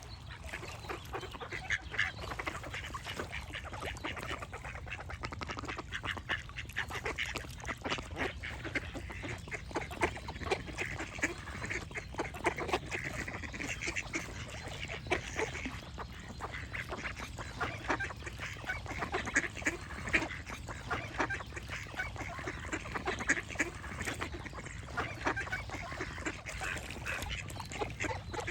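A flock of ducks quacking continually, many short calls overlapping, over a steady low background noise.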